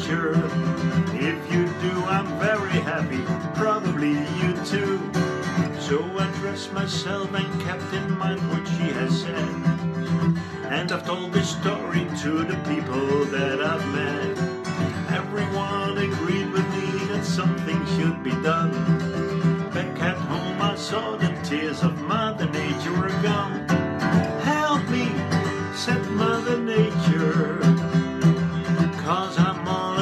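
Acoustic guitar strummed steadily, with a man singing along to it.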